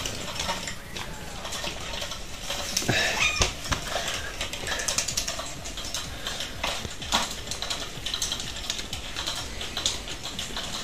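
Electric spinning-butterfly cat toy running, with many irregular light clicks and taps as cats paw at the butterfly and the toy's plastic base.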